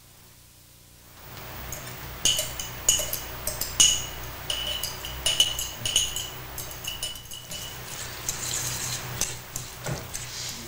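A fork mixing ground meat, onion and egg in a bowl: soft stirring from about a second in, then irregular ringing clinks of the fork against the bowl, one or two a second, until near the end.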